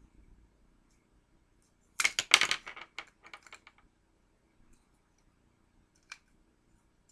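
Sharp clicks and clatter of a small plastic chain-link piece landing on the mirror glass and bouncing to rest, loudest at first and dying away over about two seconds. One more single click comes near the end.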